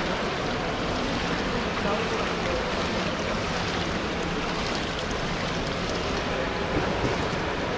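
Indoor swimming-pool ambience: a steady wash of water noise from the pool and its overflow gutter, with a faint murmur of voices in the hall.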